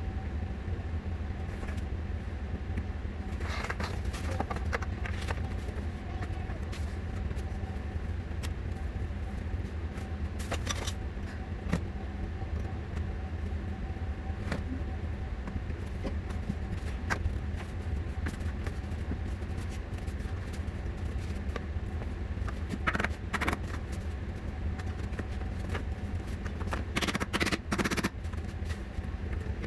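A steady low hum, with scattered clicks and knocks of things being handled, the loudest cluster near the end.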